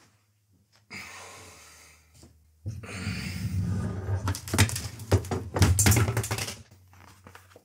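Clothing rustling and handling knocks close to the microphone as a person settles into a seat. A short rustle comes about a second in, then about four seconds of louder rustling with many small clicks and knocks.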